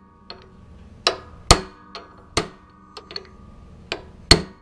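Hammer striking a steel socket held on a hex-head bolt of a pressure washer pump's aluminum head: four hard metallic knocks and several lighter taps, each with a short ring. The blows shock loose bolts whose zinc plating has seized against the aluminum body.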